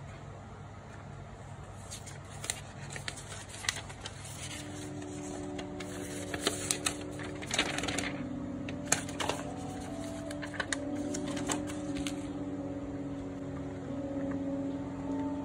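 Crinkling and rustling of paper and plastic packaging being handled, in short irregular clicks, with soft background music coming in about four seconds in.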